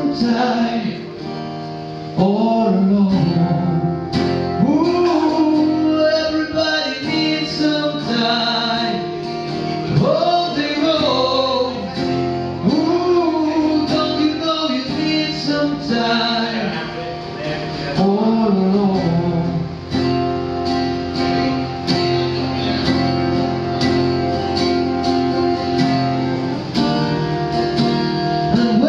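A man singing while playing an acoustic guitar, the voice carrying a melody over steady strummed chords.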